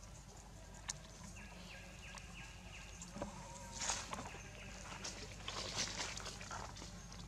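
Animal calls: a run of five short, evenly spaced notes, about three a second, followed by two bursts of crackling rustle.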